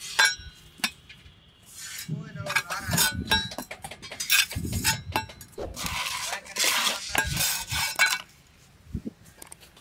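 Metal trowel scraping and clinking against a steel mould as loose sand-cement mix is thrown on and levelled off. Several dull thumps of mix landing come in the middle.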